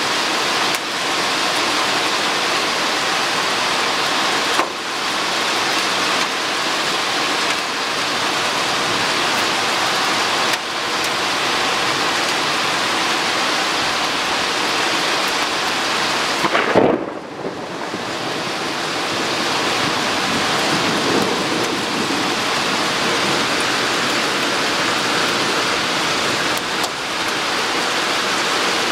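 Steady heavy rain pouring in a thunderstorm, with one short, sharp thunderclap a little past halfway.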